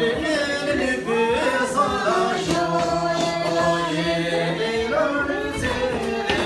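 A group of voices singing together unaccompanied, a Hyolmo line-dance song with long held notes.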